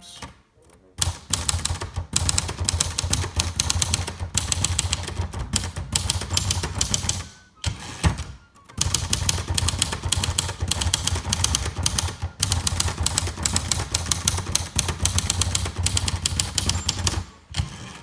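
1971 Royal Sprite portable manual typewriter (built by Silver Seiko) being typed on: a rapid, uneven run of key strikes of the typebars against the platen, with a short break about seven seconds in. The machine types evenly, its escapement not skipping.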